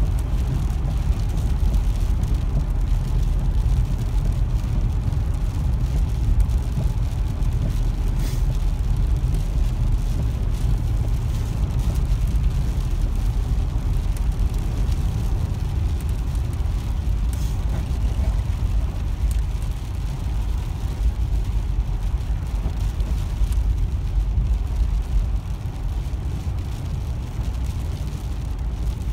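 Steady low rumble of a car driving on a wet highway in heavy rain, heard from inside the cabin: tyre and road noise with rain on the car. It eases a little near the end, and there are a couple of faint clicks along the way.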